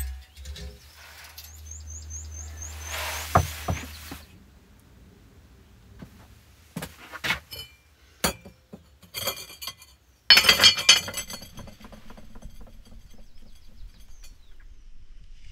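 Cast-iron hob rings on a brick wood stove's cooktop being lifted and set down: a few sharp clinks, then a loud metallic clatter about ten seconds in.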